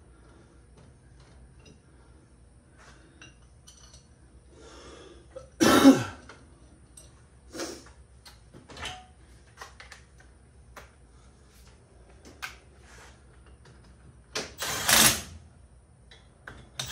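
Scattered clicks and knocks of a tape measure and hand tools being handled on a steel workbench top, with a louder burst about six seconds in and another about fifteen seconds in.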